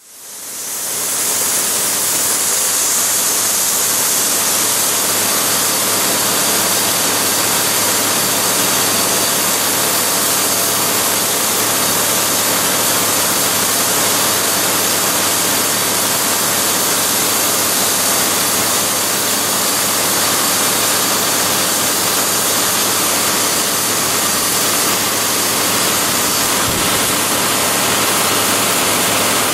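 Brent Avalanche 96 Series grain cart unloading: the auger runs and grain pours from the spout into a semi trailer, a steady rushing hiss over the steady hum of the tractor engine. The sound fades in during the first second.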